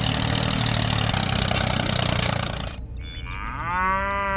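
A tractor engine running steadily, cutting off suddenly a little under three seconds in. Then a cow moos once, one long call that rises, holds and drops away.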